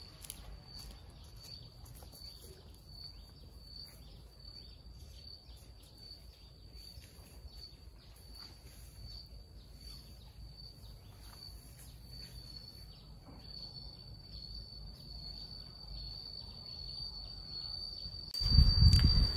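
An insect chirping in a steady high-pitched pulse, about one and a half chirps a second, that runs together into a continuous trill near the end, over a low outdoor rumble. A much louder sound cuts in about a second before the end.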